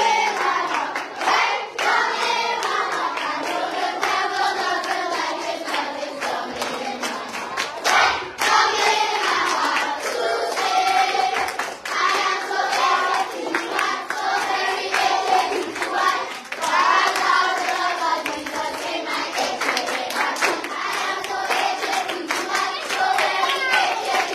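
A group of schoolchildren singing a song together in chorus, with hands clapping along throughout.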